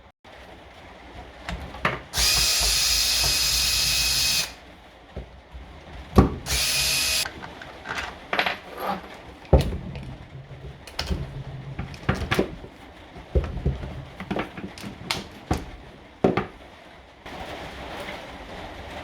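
Cordless drill-driver running twice, first for about two seconds and then for about one, followed by scattered clicks and knocks of small parts and tools being handled.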